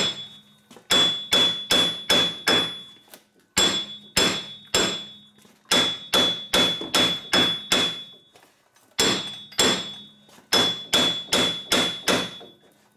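Hammer blows on a 2009 Chevrolet Equinox's front hub and steering knuckle, striking in quick runs of three to seven with short pauses, each hit ringing metallically. The hammering is meant to knock out the seized, corroded front wheel hub bearing assembly after a spray of WD-40.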